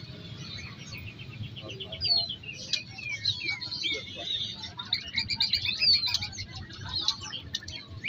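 Many caged songbirds chirping and calling over one another, a dense mix of short falling whistles and quick trills, over a low steady background hum.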